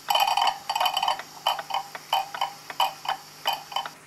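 Pendulum clock movement of a vintage kitchen wall clock ticking steadily, an even tick-tock about three ticks a second. The escapement is running close to being in beat, with its escape wheel fault sorted.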